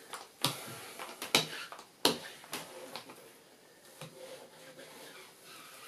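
A small paint roller is worked back and forth over a glued paper backscene print on a board: a faint rolling and rustling, with several sharp clicks and taps in the first half and weaker ones later.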